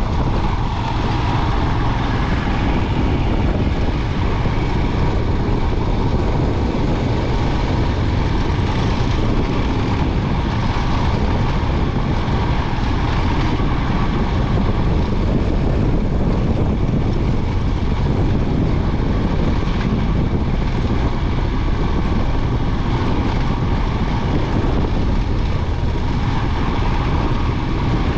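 Royal Enfield Himalayan 411's single-cylinder engine running steadily under way, heard from the bike itself, with no let-up.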